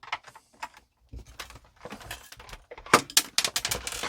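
Sharp clicks, rattles and light knocks of a Phillips screwdriver being worked at a screw in a plastic vacuum cleaner housing, loudest about three seconds in.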